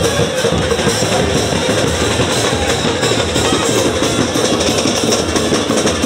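A supporters' drum band playing surdo bass drums in a steady, loud batucada rhythm.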